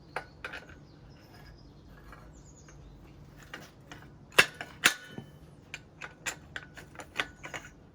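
Small metal parts of a RockShox Judy suspension fork clicking and clinking as they are handled. The two loudest sharp clicks come about four and a half and five seconds in, followed by a run of lighter clicks.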